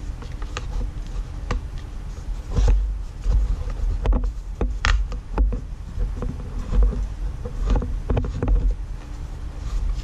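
Irregular small clicks and light knocks of a screw, washers and a nut being fitted through a bearing on a clear acrylic frame, over low rumbling bumps of the frame being handled.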